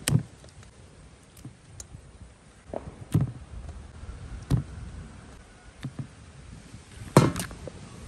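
Pieces of raw ribbon fish dropped one at a time into a stainless steel bowl of wet masala paste, giving scattered soft taps and thuds against the bowl a second or two apart, the loudest a double hit near the end.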